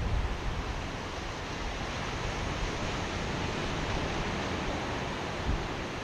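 Steady wash of Atlantic surf breaking on a sandy beach, a continuous even hiss, with some wind rumbling on the microphone.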